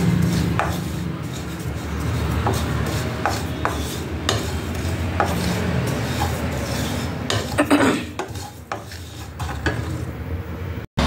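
A wooden spatula stirs and scrapes whole fennel, cumin, fenugreek and mustard seeds dry-roasting in a non-stick pan: a dry rustle with scattered light clicks over a low steady hum, with a brief run of louder clicks about eight seconds in.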